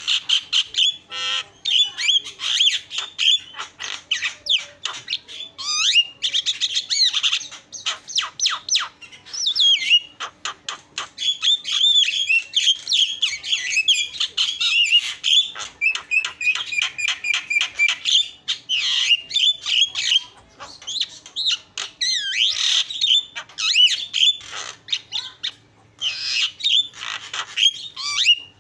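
Javan myna (jalak kebo) singing a long, busy song of chirps, whistled glides, harsh squawky notes and rapid trills, laced with mimicked calls, with a few short pauses.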